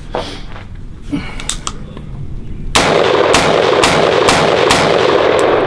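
PAE AR-15 rifle firing a string of shots, about two a second, starting about three seconds in after a few light clicks. It cycles steadily after a tannerite blast threw dirt into it and runs pretty good.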